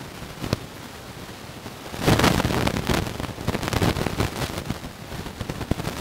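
Rustling and crackling of leaves and grass with irregular sharp clicks, getting louder from about two seconds in.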